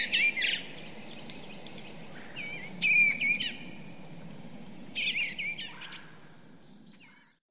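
A songbird singing short, warbling phrases every two to three seconds over a steady low background hum; the sound fades out near the end.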